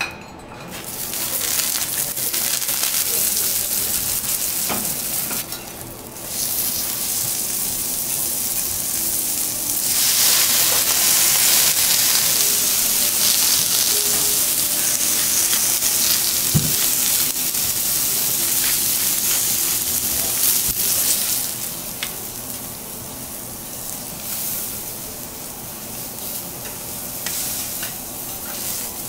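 Halved lobster sizzling on a hot steel teppanyaki griddle: a steady hiss that grows louder about a third of the way in and eases in the last few seconds. There is one brief knock partway through.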